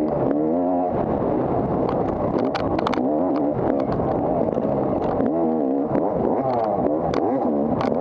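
250 cc off-road dirt bike engine being ridden hard, revving up and down over and over as the throttle is worked. Scattered sharp clattering knocks come through, especially near the middle and near the end.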